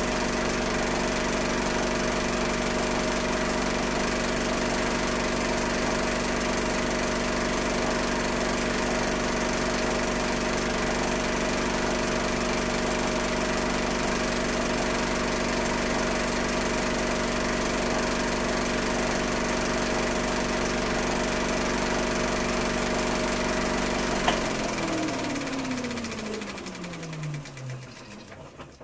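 Old film projector running steadily with a motor hum and the clatter of the film mechanism. About 24 seconds in it clicks off and the motor winds down, its pitch falling as the sound fades out near the end.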